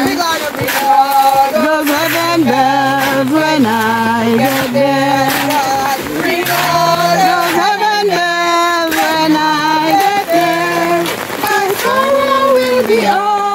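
Voices singing a hymn in slow, held notes with vibrato, and a lower part sounding beneath the melody.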